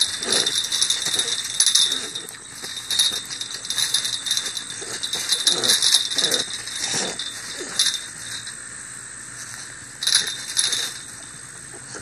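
Two puppies whining and whimpering in short falling cries as they jump at a chain-link fence, with repeated metallic rattling from the fence.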